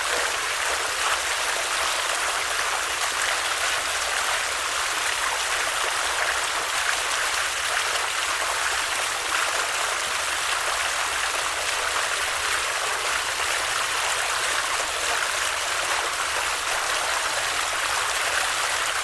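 Stream water flowing with a steady, unbroken rush.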